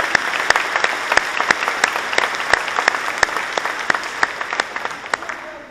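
Audience applauding, with a few loud single claps close by standing out from the crowd's clapping; the applause dies away near the end.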